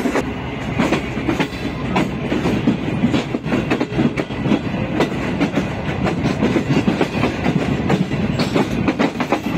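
Green Line Express passenger train running along the track, wheels clattering over the rail joints with many irregular clicks over a steady rumble, heard from an open coach doorway.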